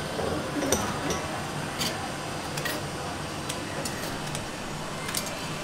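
Scattered light metallic clicks and ticks from a stainless-steel prawn-cracker press as its handle is worked and the plates opened, over a steady background hum.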